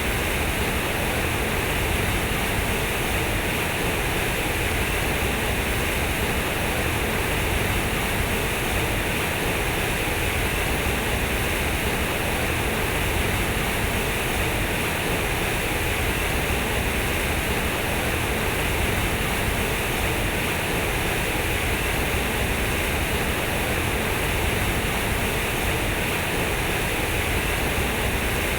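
Water from a fountain splashing and falling steadily, an even rushing hiss without change.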